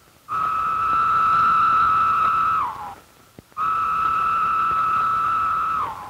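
Periodical cicada song: two long calls, each a steady high whine of about two and a half seconds that drops in pitch at its end.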